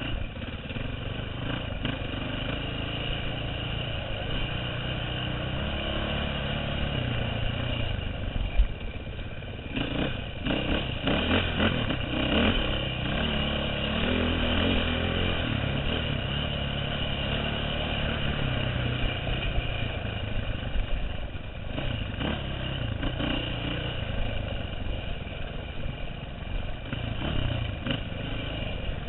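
2009 KTM 530 EXC's single-cylinder four-stroke engine running under load, revving up and down, picked up on a helmet camera. A sharp knock about eight and a half seconds in and a spell of clattering a little after.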